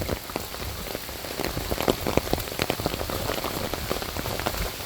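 Rain pattering steadily, a dense run of small irregular taps.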